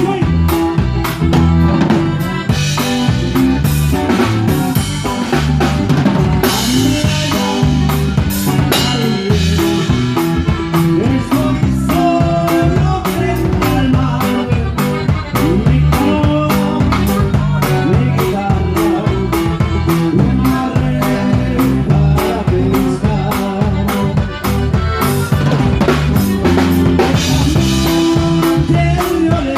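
Live band playing with the drum kit loud and to the fore: a steady beat of snare, bass drum and cymbal strokes over bass and guitar.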